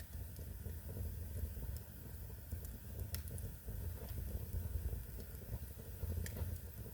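Wood fire burning in a fireplace: scattered sharp crackles and pops over a steady low rumble, with the clearest pop about three seconds in.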